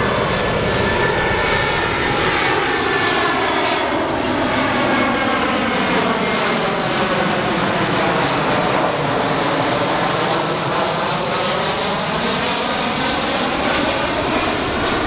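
Airbus A320 jet airliner on final approach with gear down, passing low overhead: a steady loud engine rush with a phasing whoosh that sweeps down in pitch as the plane comes over and back up as it moves away.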